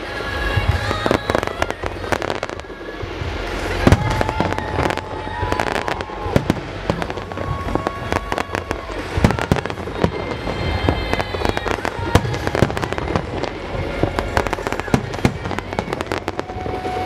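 Aerial fireworks bursting and crackling in rapid, overlapping bangs over a music soundtrack with held notes.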